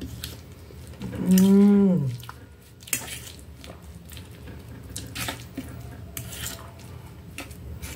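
A long hummed "mmm" about a second in, held and then falling in pitch at its end. Then chewing, with scattered clicks and taps of a fork and knife on a metal plate.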